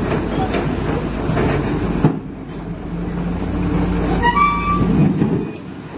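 Komatsu PC200 hydraulic excavator running, its diesel engine droning steadily. There is a sharp clank about two seconds in and a few short high squeals a little past four seconds.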